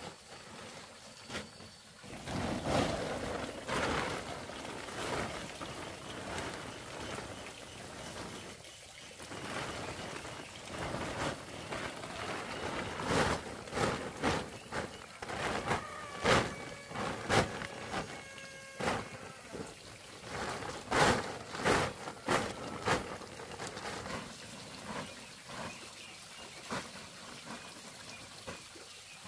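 Water splashing and trickling, with irregular knocks and clatter from work at the pond.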